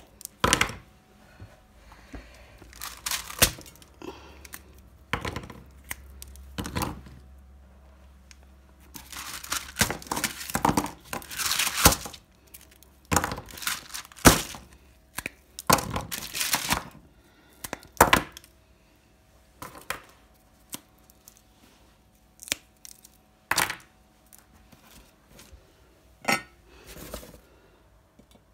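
Slabs of hardened sesame brittle (til chikki) snapped and broken apart by hand: sharp cracks and crackles at irregular intervals, busiest about ten seconds in, with crinkling of the paper underneath. The cooled brittle has set hard and crisp.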